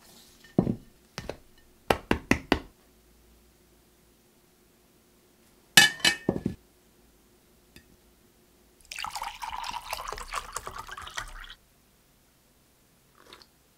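Ceramic plates and a paper cup set down on a table with a few sharp knocks, one plate landing with a loud clink and a short ring about six seconds in. Later, water is poured into a glass for about two and a half seconds.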